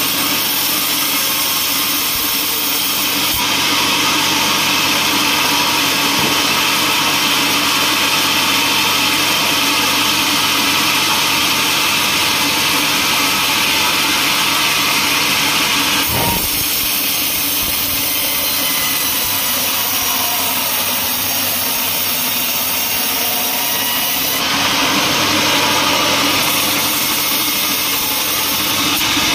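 Band sawmill running steadily as its blade cuts lengthwise through a teak log, the machine's drone mixed with a bright hiss of the blade in the wood. About halfway through there is a brief knock, after which the sound's character shifts.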